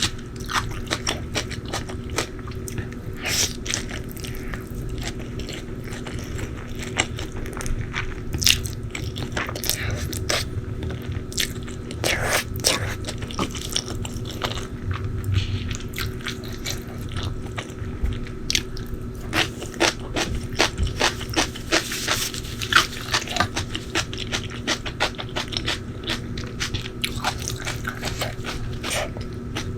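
Close-miked eating: repeated biting and chewing with crisp crunches and sharp mouth clicks, over a faint steady hum.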